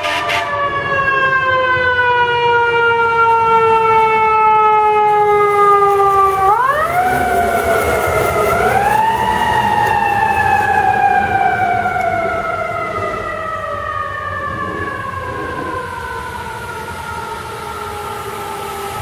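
Fire engine siren in a long falling wail, rising steeply again in two steps about six to nine seconds in, then winding slowly down once more.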